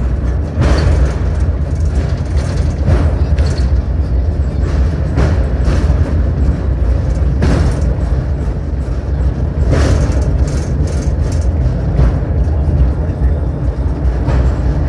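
Cable car running in an inclined tunnel shaft: a steady, loud low rumble with a sharp clack about every two seconds.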